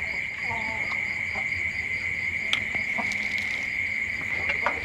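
Crickets chirping in one steady, unbroken high trill, rather loud, with a few faint clicks over it.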